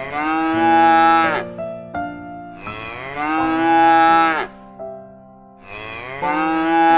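Cow mooing three times, each moo about a second and a half long and falling in pitch at its end, over light keyboard music.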